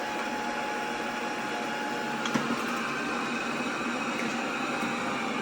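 Eufy L60 SES robot vacuum running steadily, its suction motor and brushes working over carpet on one level below its highest suction setting. A faint thin tone fades out about halfway through, with a small tick around the same time.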